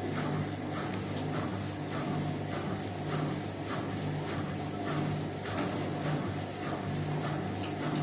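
Indesit front-loading washing machine tumbling a wet load of towels: a steady low motor hum that swells about once a second, with soft regular sloshing and ticks from the turning drum.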